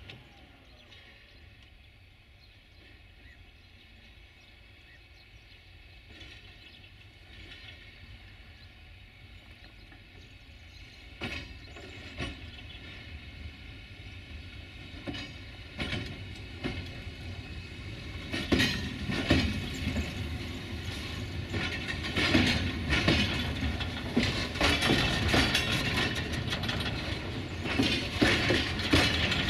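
A rake of loaded covered hopper wagons rolling slowly during shunting, growing steadily louder as it approaches. Wheels click over rail joints, first singly, then in a dense clattering run as the wagons pass close from about two-thirds of the way in.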